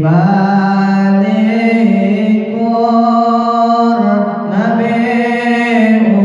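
A young man's solo voice chanting shalawat unaccompanied, Sundanese style, in long held notes with slow bends in pitch.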